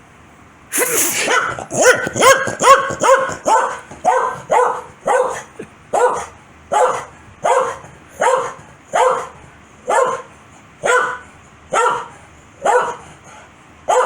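A corgi barking angrily in a long run of short, sharp barks that starts about a second in. The barks come about three a second at first, then slow to a little over one a second.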